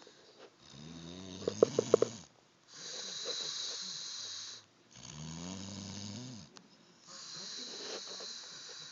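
Snoring in slow, regular breaths: a rattling snore starts about half a second in and again around five seconds, and each is followed by a long breathy hiss.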